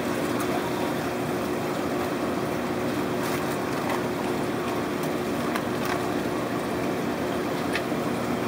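Steady hum and hiss of aquarium equipment, pumps and running water, with a few faint clicks and crinkles from plastic fish bags being handled.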